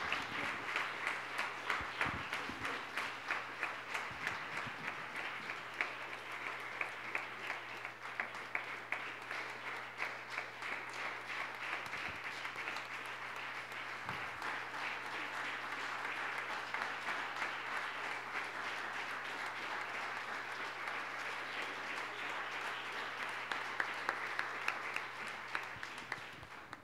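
Audience applauding steadily with many dense, irregular claps, dying away near the end.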